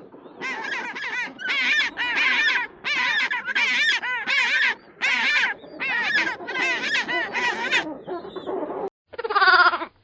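Domestic fowl calling over and over, about two calls a second, each call wavering in pitch. Near the end, after a short break, comes one louder call that falls in pitch.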